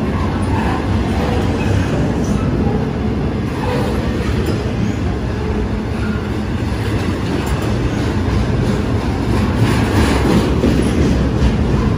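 BNSF double-stack intermodal freight train passing close by at speed: a steady, heavy rumble of the cars and wheels on the rails, with scattered metallic clanks and rattles, a few more of them near the end.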